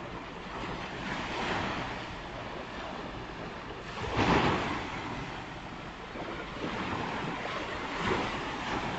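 Ocean surf washing onto a beach, swelling and fading every three to four seconds, with the loudest wave breaking about four seconds in.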